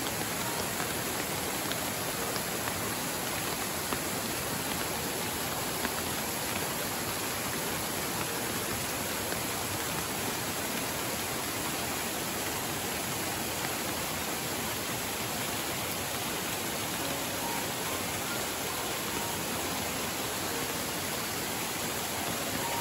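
Steady rush of water: a fast-flowing, rain-swollen river with several thin waterfalls splashing down a rock face into it.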